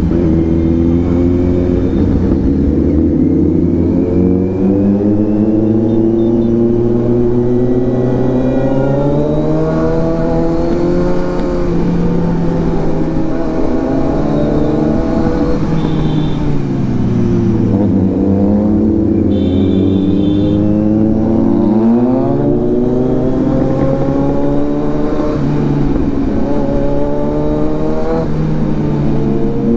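Kawasaki Z900's inline-four engine heard from the rider's seat, revving up and easing off through the gears while riding, its pitch climbing and falling several times.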